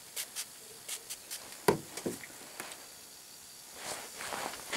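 Short hissing spurts of liquid gas leak detector squirted from a small squeeze bottle onto a pipe thread, with two light knocks of handling a little under two seconds in and a soft hiss near the end.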